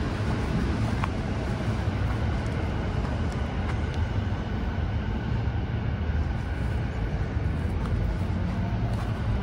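Steady low rumble of city vehicle noise, with no single event standing out.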